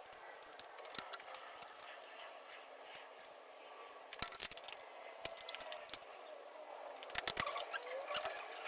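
Scattered clicks and knocks of tools and parts being handled, with a cluster of sharper clicks about seven seconds in.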